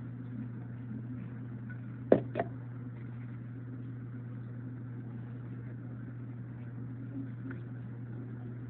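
A steady low hum, with two sharp clicks close together about two seconds in.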